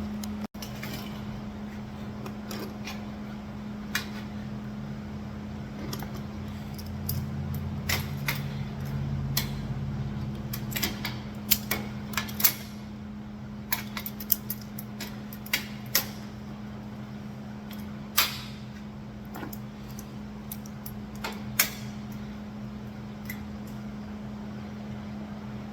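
Scattered sharp clinks and clanks of steel parts being handled and set in place, over a steady low hum.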